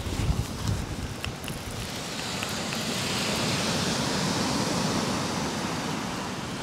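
Waves breaking and washing up a shingle beach, swelling to a peak around the middle and easing off, with wind rumbling on the microphone at the start.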